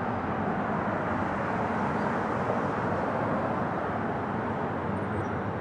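Steady jet rumble from a twin-engine Boeing 777 airliner on approach with its landing gear down, flying away.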